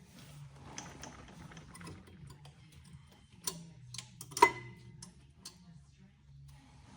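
Small metal clicks and taps of rear brake pad hardware being angled and twisted into place, with one sharp ringing metallic click about four and a half seconds in.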